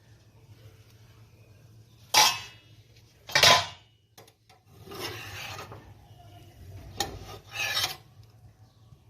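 Several short rasping scrapes of a kitchen utensil against a dish, five strokes in all, the loudest two near the start.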